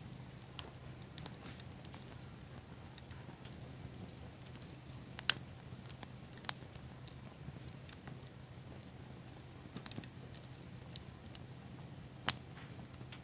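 Small campfire of pine cones and seed pods crackling, with a faint steady hiss and a few sharp pops, the loudest about five seconds in.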